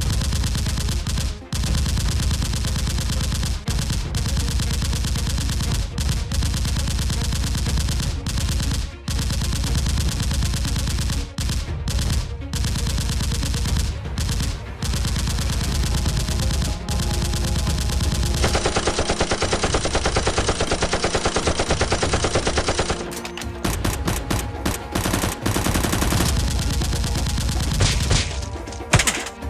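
Sustained rapid automatic gunfire, game-style gun sound effects, in long bursts broken by short pauses every second or two.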